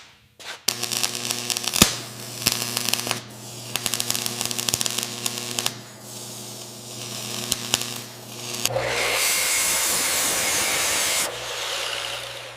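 A power tool's motor hums steadily, overlaid with rapid crackling and clicking of contact on metal. About nine seconds in, a loud, even hiss takes over for a few seconds, then fades.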